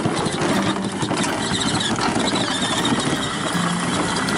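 Power Wheels battery-powered ride-on toy truck driving: its electric drive motors and gearbox run with a high whine while the plastic wheels roll over rough ground.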